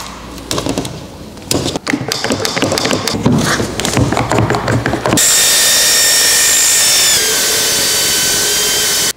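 Clicking and crackling handling noises as adhesive tape is pressed onto a cordless circular saw's base plate and the saw is set on the aluminium sheet. Then the saw cuts the aluminium sheet with a steady high-pitched whine, dropping a little in pitch about seven seconds in.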